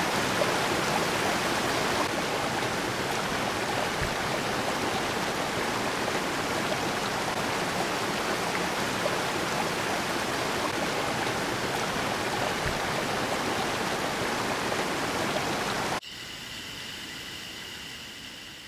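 Small mountain creek waterfall, water rushing and splashing steadily over rocks. About sixteen seconds in it cuts off suddenly to a much quieter hush with a faint steady high tone.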